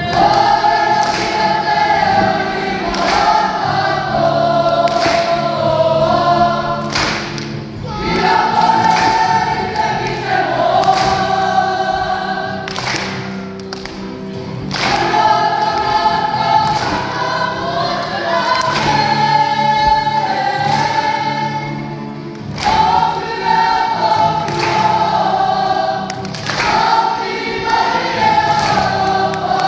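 A school group singing together in unison, in long sung phrases with short breaths between them. Sharp percussive hits land every second or two under the singing.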